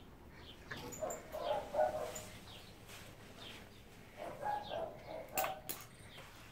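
Domestic cats meowing in two clusters of short calls, with a couple of sharp clicks near the end.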